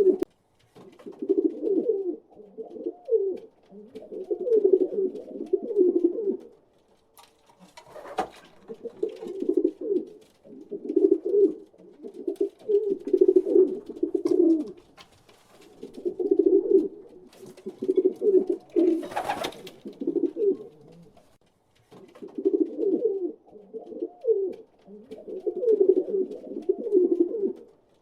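Pigeons cooing: bouts of low, warbling coos a few seconds long, one after another with short pauses. A brief sharp noise cuts in twice, about eight seconds in and again near nineteen seconds.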